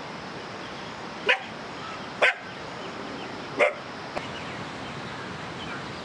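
A dog barking three times in short single barks, about a second apart, over a steady background hiss.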